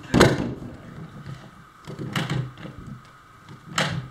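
Hand pop-rivet tool being squeezed to set a rivet through a metal edge strip. It gives three sharp clacks, about a second and a half to two seconds apart.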